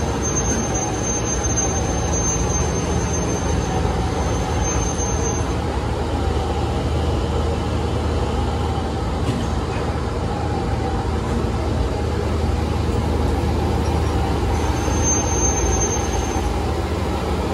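Steady din of metalworking machinery running in a hand-tool factory, with a thin high whine over it for the first five seconds and again for about two seconds near the end.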